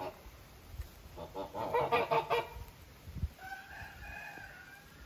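Farmyard fowl calling: a quick run of repeated calls about a second and a half in, then one longer held call near the end.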